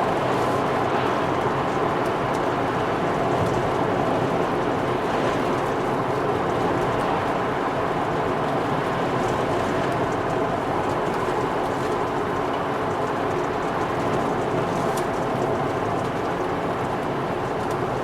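2001 Volvo V70 T5 on the move at a steady speed: a constant hiss of tyre and road noise with the turbocharged five-cylinder engine running underneath. The engine has a misfire from failing ignition coils.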